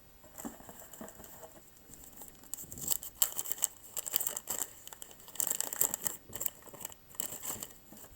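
Wax-paper wrapper of a 1985 Topps baseball card pack crinkling and tearing as it is opened, in a run of quick, crisp rustles that start about two and a half seconds in.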